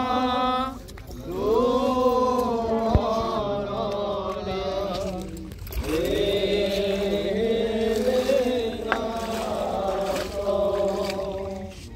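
A group of people singing a hymn together in slow phrases of long held notes, with short breaks between phrases.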